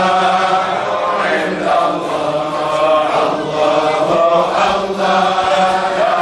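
Voices singing a slow, sustained Islamic devotional chant in long held lines.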